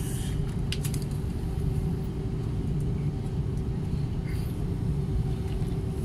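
Jet airliner's engines heard inside the cabin while taxiing: a steady low rumble with a constant hum. A few light clicks about a second in.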